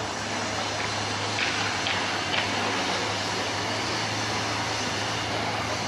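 Lamborghini Aventador police car's V12 engine running at low speed, a steady low hum under a wash of noise, with a few faint ticks about a second and a half to two and a half seconds in.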